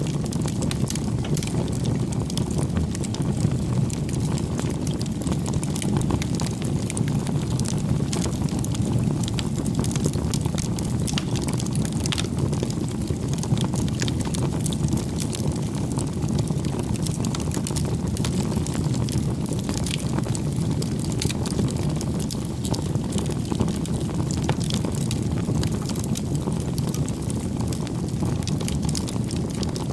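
Wood fire burning, a steady low rumble with many scattered sharp crackles and pops.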